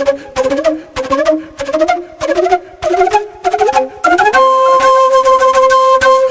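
Background music led by a flute: short phrases of rising notes, then a long held note from about four seconds in.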